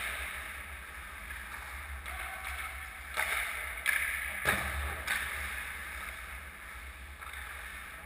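Ice hockey skates scraping and carving on rink ice, with a few sharp knocks and scrapes about three to five seconds in, over a steady low hum.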